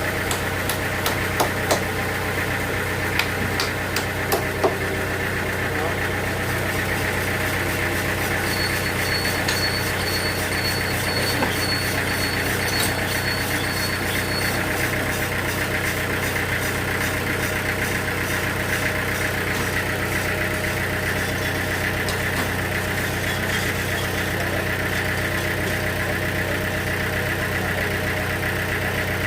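Sawmill machinery running steadily with an even engine hum, with a few sharp clicks or knocks in the first five seconds.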